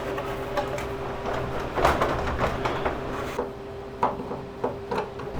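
Plastic side cover of an elliptical trainer being worked loose and lifted off: scattered knocks and scrapes, a few sharper ones about two seconds in and again near the end.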